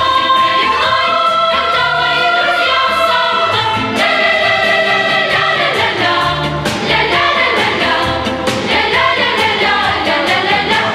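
A song with sung vocals over full instrumental backing, playing as the soundtrack.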